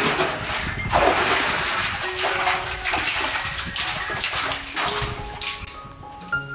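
A bucket on a rope splashing into the water at the bottom of a concrete well, several splashes as it is dipped and filled, stopping near the end; background music plays under it.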